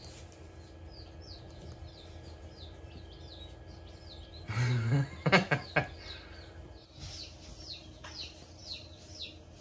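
Chicks peeping: short, falling high chirps repeating two or three times a second, louder near the end. A few sharp knocks with a brief low sound about halfway through are the loudest thing.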